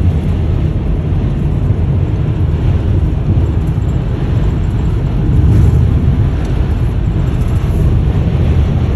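Steady low rumble of a car at highway speed, heard from inside the cabin: road and wind noise.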